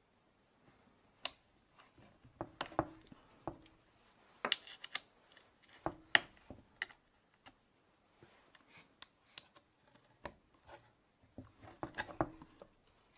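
Irregular small clicks and light scrapes of a 4 mm Allen key working the screws on an Echo chainsaw's plastic starter housing, with the saw being handled.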